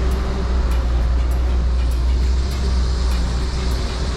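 Steady rumble of road traffic, with a low engine drone that fades about half a second in.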